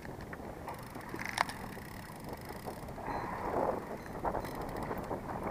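Wind buffeting the microphone over the steady wind-and-water background of a small boat trolling on open water, with a single sharp click about a second and a half in and a louder gust around three to four seconds in.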